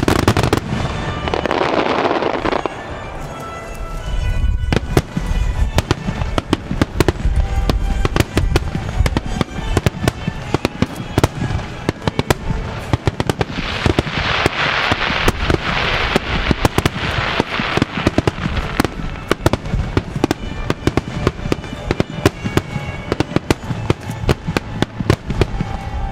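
A starmine barrage of fireworks shells firing and bursting in rapid succession, many bangs a second, over music played for the synchronised display. Stretches of hissing rise over the bangs in the first couple of seconds and again in the middle.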